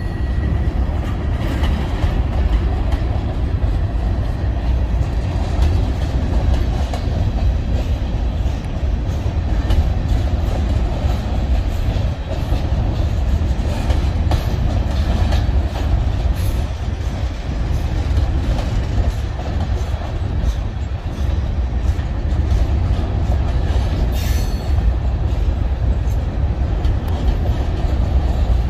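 BNSF grain train's covered hopper cars rolling past: a steady low rumble of steel wheels on rail, with faint clicking throughout.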